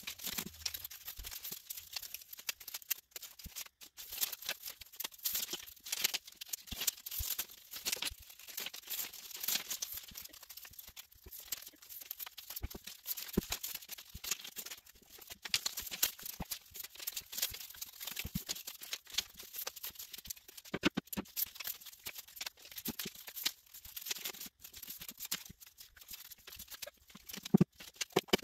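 Paper strips rustling and crinkling as they are folded back and forth over each other into a paper accordion, in an irregular run of small, crisp crackles.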